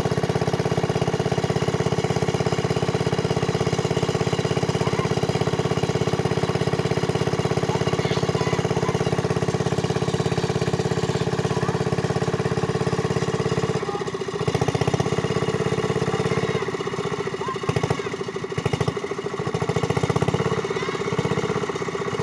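A small engine running steadily with a rapid, even beat. From about two-thirds of the way in it wavers, with short drops and surges.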